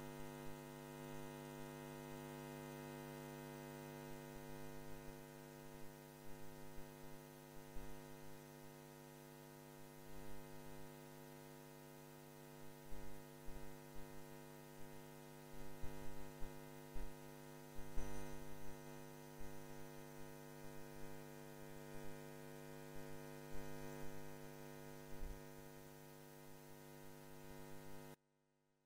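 Steady electrical mains hum with many harmonics in the sound system's feed, with faint low thuds now and then. The hum cuts off abruptly near the end.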